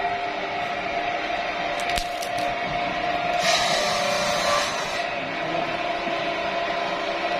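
Sawmill saw running through dry teak, a steady mechanical whine over a rushing noise. There are a few sharp clicks about two seconds in, and a brighter, hissier stretch around the middle.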